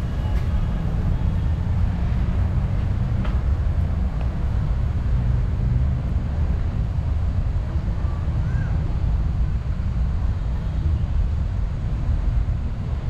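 Steady low rumble of outdoor background noise, with a faint short chirp about two-thirds of the way through.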